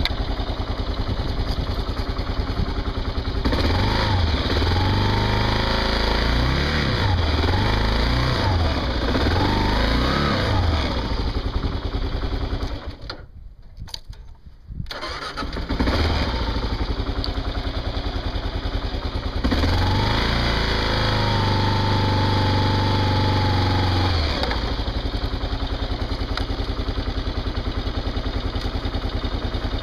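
Kawasaki KLR single-cylinder motorcycle engine running and being revved up and down several times, with a brief drop-out about halfway through. It is then held at a steady raised rev for about five seconds before dropping back to idle.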